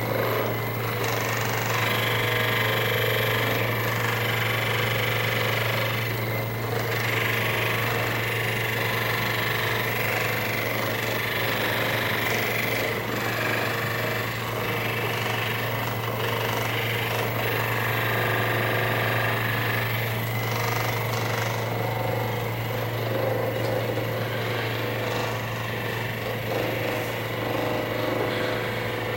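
Percussion massage gun running continuously against the shoulder muscles, a steady buzzing hammer with a motor whine that shifts in pitch every few seconds as it is pressed and moved.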